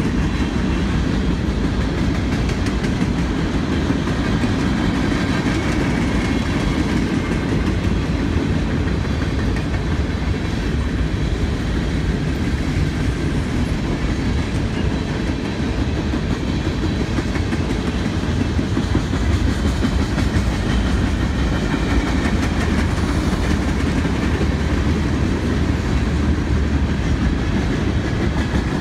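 Freight train cars rolling past steadily: centerbeam flatcars and tank cars, their steel wheels running on the rails with a continuous rumble.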